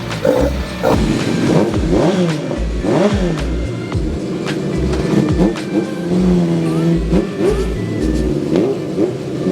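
An engine revved again and again, its pitch rising and falling with each blip, over background music with a steady beat.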